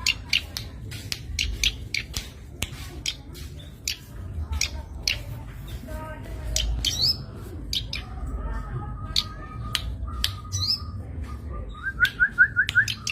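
Zitting cisticola (cici padi) calling: a steady series of short, sharp, high-pitched notes, with a quick run of about five rising notes near the end, over a low rumble.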